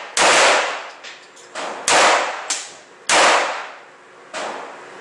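Gunshots at a shooting range: three loud shots a little over a second apart, each ringing out in a long echoing decay, with fainter shots in between and one near the end.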